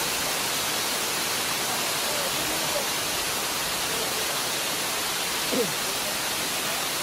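Steady, even rush of falling water from a waterfall, with a brief faint falling tone about five and a half seconds in.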